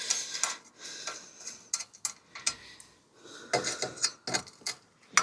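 Irregular light metallic clicks and clinks of hand tools and loose bolts being handled while a bicycle is stripped down.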